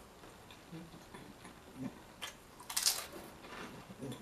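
Potato chips being bitten and chewed with the mouth close to the microphone: short crunches, the loudest cluster about three seconds in, with softer chewing and mouth sounds between.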